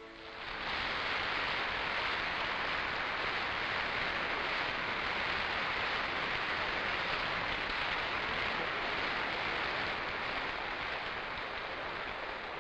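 Audience applauding, building up within the first second after the orchestra's last chord and holding steady, easing off slightly near the end.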